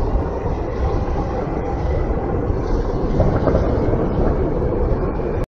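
Steady outdoor ambience: a loud low rumble with hiss above it, cutting off suddenly near the end.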